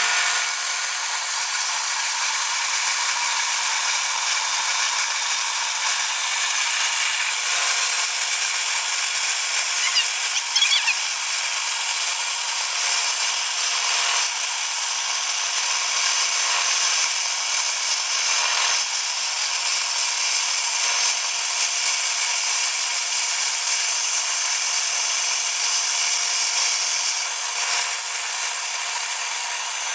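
Electric power tool running steadily on wood, with no pauses and a constant motor whine.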